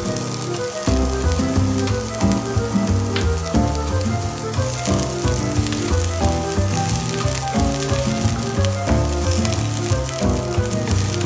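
Diced red onions sizzling and crackling in hot oil in a nonstick frying pan as they are sautéed, over background music with a bass line that comes in about a second in.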